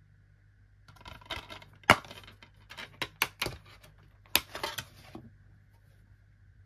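Plastic DVD case snapped open and the disc pressed off its centre hub: a run of plastic clicks and rattles, the sharpest a little under two seconds in and another about four and a half seconds in.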